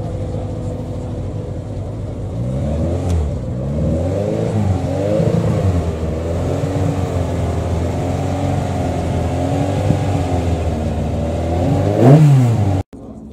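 Andrea Moda S921 Formula 1 car's engine running just after start-up: a rough idle, then blipped repeatedly from about three seconds in, the revs rising and falling. Near the end one sharp high rev, the loudest moment, then the sound cuts off suddenly.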